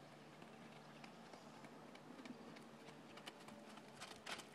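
Faint hoofbeats of a Connemara mare moving on the arena's footing, growing clearer near the end as she comes closer.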